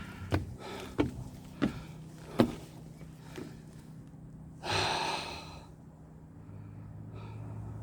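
A hiker's footsteps on rocky ground, sharp steps about every two-thirds of a second that stop a little past three seconds in; near the middle a loud breathy exhale lasting about a second.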